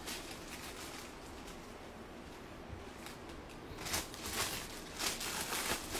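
Rustling and crinkling of saree silk and its plastic packaging being handled. The sound is faint at first, with a run of louder crinkles from about four seconds in.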